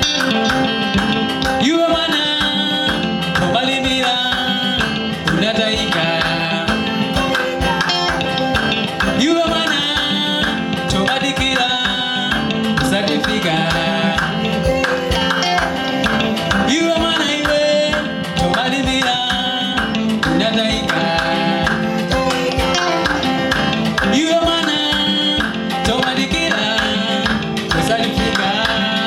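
A band playing an upbeat instrumental passage with guitar and drums over a steady beat.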